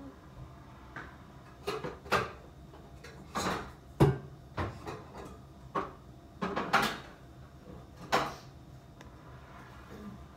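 Kitchen cabinet doors and cookware knocking and clattering while someone rummages for a cooking pot: a string of irregular sharp knocks and bangs, the loudest about four seconds in.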